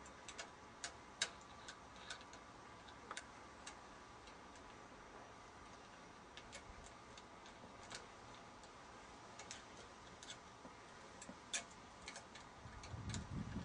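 Faint, irregular metallic clicks of a mounting bracket and its nuts being fitted and tightened on the aluminium boom of a UHF grid aerial.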